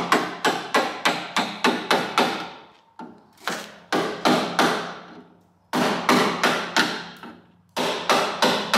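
Hammer driving a chisel to chip thick body filler (bog) out of a Holden Torana's steel body panel. Runs of quick, sharp strikes come about four a second, broken by three short pauses.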